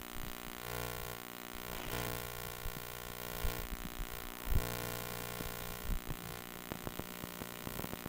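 Muffled handling noise from a covered camera: a steady electrical hum with soft knocks and rubbing against cloth, and a run of quick clicks near the end.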